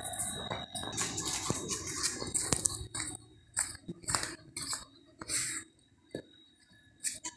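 A dog chewing and mouthing something small on the ground. Later come scattered short breathy bursts and clicks of mouth noise and panting, with quieter gaps between them.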